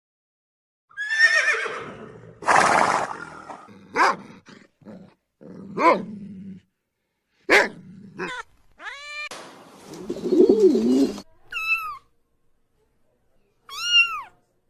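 A series of different animal calls: rough, noisy cries, then short sharp calls, and short arching high calls near the end.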